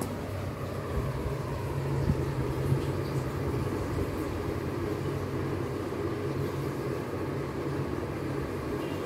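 Steady low machine-like rumble with a hum, swelling slightly a couple of seconds in, with two brief knocks.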